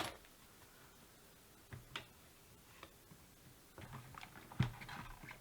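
Faint, scattered clicks and light taps of small objects being handled, growing busier in the second half, with the loudest knock about four and a half seconds in.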